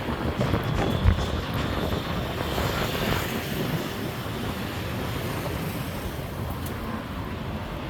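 City street traffic: a steady rush of passing vehicles, with a brief low thump about a second in.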